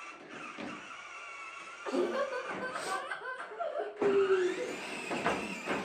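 Laughter and giggling, starting about two seconds in, over the faint steady whine of a children's electric ride-on car's motor.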